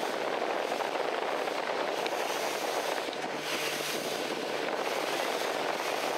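Boat under way: a steady rush of wind and water with a low engine hum underneath.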